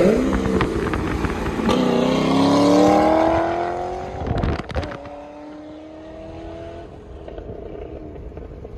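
2007 Corvette Z06's 7.0-litre LS7 V8 through a Corsa Extreme axle-back exhaust and H-pipe, accelerating hard with the pitch rising steadily. A gear change comes about four and a half seconds in, then the engine pulls on, rising again and quieter.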